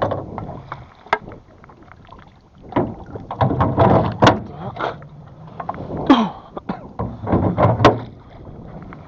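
Wooden or metal oars knocking and scraping against the rowboat's oarlocks and gunwale as they are fitted in place, a run of irregular clunks and rattles.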